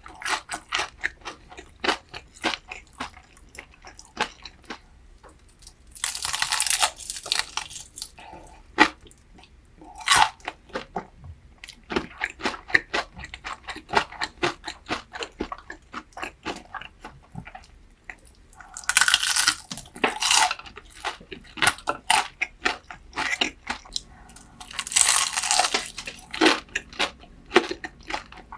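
Close-miked eating of crunchy food: a steady run of rapid crunches and chewing. Louder, longer crunching bites come about six seconds in, at about nineteen seconds and at about twenty-five seconds.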